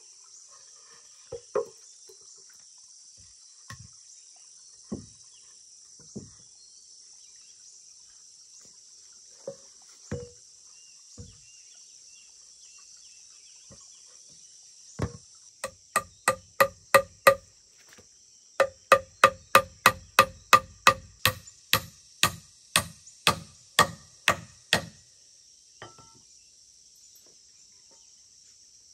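Insects buzzing steadily, with a few scattered wooden knocks of logs being handled. About halfway in, a hammer starts striking, about two blows a second with a ringing note on each, for roughly ten seconds before stopping.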